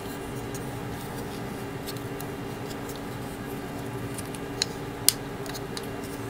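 Small plastic display-stand parts of a gashapon model kit being handled and pressed together, with faint scattered ticks and two sharp clicks about four and a half and five seconds in, over a steady low hum.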